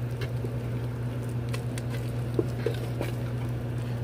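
A wooden spoon stirring thick mashed potatoes in a pot, giving scattered soft scrapes and light taps against the pot, over a steady low hum.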